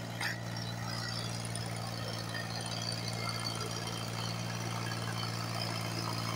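Tractor diesel engine working steadily under load as it pulls a loaded trolley uphill, heard as a low, even hum.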